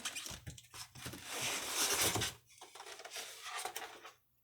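Rustling and handling noises from the packaging around a boxed fridge-freezer, loudest about halfway through. The sound cuts off abruptly just before the end.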